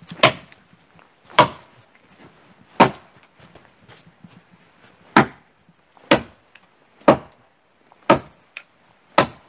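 Axe chopping into an upright wooden pole: eight separate sharp blows, about one a second, with a longer pause in the middle. This is the first cutting of the centre pole that holds up the roof frame.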